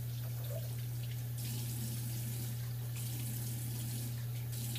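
Hot water running steadily from a bathroom faucet into the sink basin while a face is rinsed, with a steady low hum underneath.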